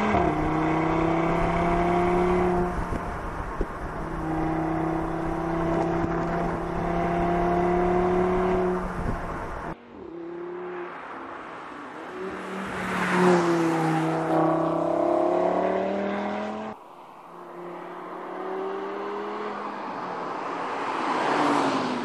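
Audi TT RS's turbocharged 2.5-litre five-cylinder engine accelerating hard. Its note climbs steadily, with a brief dip for a gear change about three seconds in. After a sudden cut the car passes by twice, engine and tyre noise swelling and fading each time.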